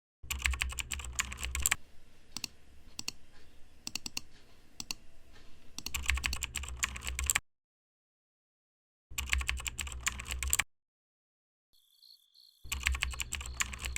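Fast typing on a computer keyboard in four quick bursts of rapid key clicks, with lighter, sparser tapping between the first two and total silence between the later ones. A faint steady high tone comes in near the end.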